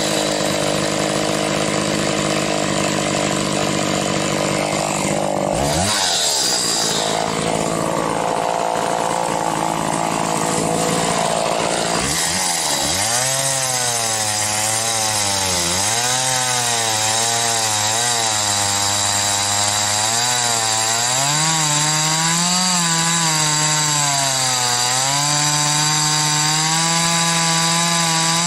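Homelite 410 two-stroke chainsaw running at high speed while bucking an oak log. Through the second half its pitch repeatedly dips and recovers as the chain takes load in the cut.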